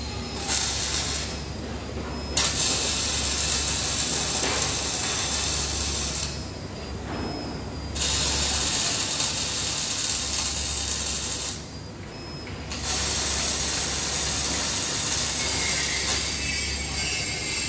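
OTC robotic MIG welder's arc crackling steadily as it lays welds on steel poles, throwing spatter. The arc cuts out three times for a second or so while the torch moves between seams.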